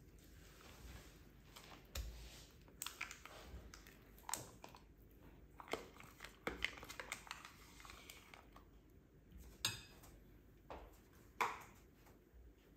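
Faint kitchen handling sounds: scattered light clicks, taps and scrapes of utensils and dishes, with a few sharper ticks.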